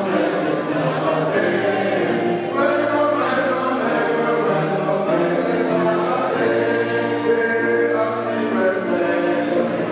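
Church choir singing, several voices together holding long sustained notes.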